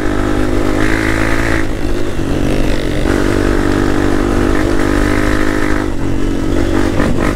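Dirt bike engine running while riding on a trail, its note stepping up and down a few times as the throttle changes, over a steady rush of noise.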